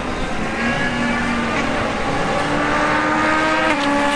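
Race car engine accelerating at full throttle, its pitch climbing steadily.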